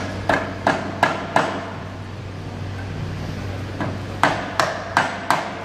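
Hammer blows on a punch driving the old silicon carbide stationary seal face out of a Goulds 23SH pump's seal chamber. Five quick metallic strikes, each ringing briefly, then a pause of about two seconds and five more.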